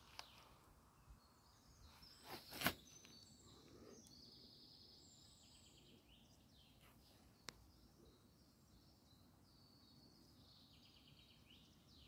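Faint songbird calls and chirps from the woods, with two loud rustles close together about two and a half seconds in and a single sharp click about halfway through.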